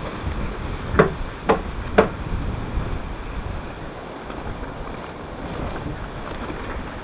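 Surf breaking around the beached trimaran with wind on the microphone, and three sharp knocks about half a second apart, about a second in.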